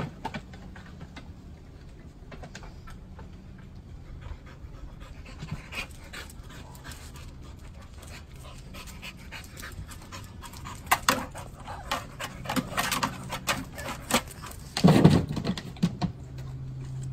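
A dog panting, the breaths growing louder and closer over the last several seconds, with the loudest burst about two seconds before the end.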